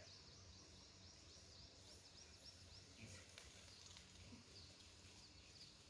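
Near silence: faint rural ambience with a quick run of faint high bird chirps, about five a second, over the first two seconds or so.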